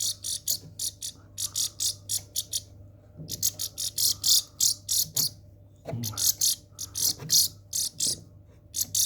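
Young goldfinches calling in rapid bursts of short, high-pitched chirps, several a second, with brief pauses between bursts. A faint steady hum runs underneath.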